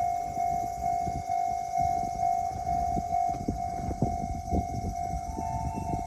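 Japanese railway level-crossing warning bell ringing, an electronic tone pulsing steadily about two to three times a second. A second, higher tone joins about five seconds in. Low rumbling and knocking noise runs underneath.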